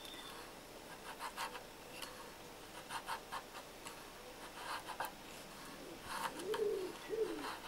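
Faint, irregular scraping strokes of a stick being drawn against a fixed knife blade, shaving off thin curled slivers of wood. From about six seconds in, a pigeon coos several times.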